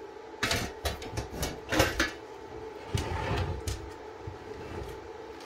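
Sheet-metal breaker panel being handled on a workbench: the steel cover and enclosure give a handful of sharp knocks and scrapes, with some rustling.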